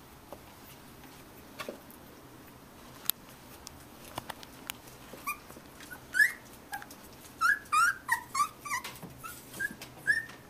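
Three-week-old beagle puppies whimpering and squeaking in short, high-pitched calls, coming thick and fast from about halfway through. A few light clicks and knocks come before them.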